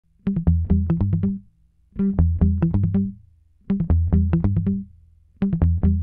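Background music: a short phrase of sharp plucked notes over a low bass, repeating about every second and a half with a brief silence after each.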